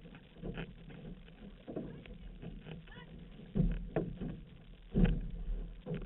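Outrigger canoe under paddle: water rushing and splashing along the hull with the crew's paddle strokes. Two louder, low thumps come about halfway through and again a second or so later.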